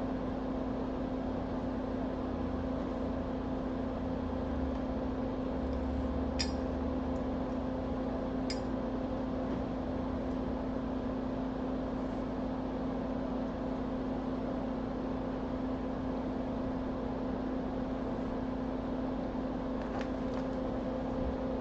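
Steady electrical fan hum from bench equipment, with a low steady tone, and three faint light clicks: two about six and eight seconds in, one near the end.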